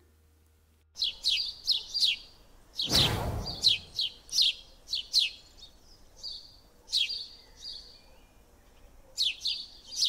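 Small birds chirping: quick, high chirps that slide downward, several a second, starting about a second in, with a short lull near the end before they resume. A single whoosh sounds about three seconds in.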